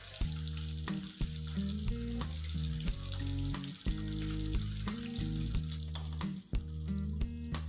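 Milkfish pieces sizzling as they fry in oil in a wok, under background music with a changing melody. The sizzling stops about six seconds in, and a few light taps of a metal spatula on the wok follow.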